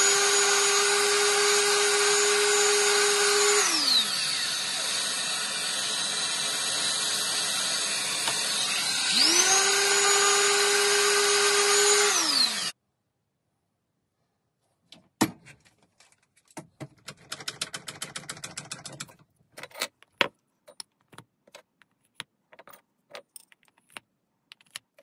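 A random orbital sander with a dust-extraction hose attached: under the steady extractor noise, the sander's motor spins up, runs and winds down twice, then everything cuts off abruptly about 13 seconds in. After a short silence come scattered light clicks, knocks and a brief rattle as steel spade bits are handled in a small plywood holder.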